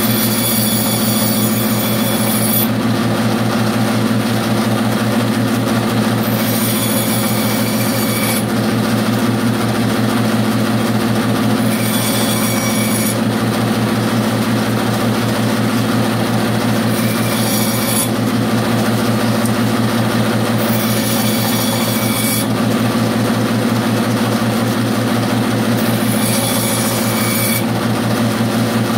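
Bandsaw running steadily with a constant motor hum. Six short cuts go through small wooden blocks, about one every five seconds, each a second or two of high-pitched cutting noise over the hum.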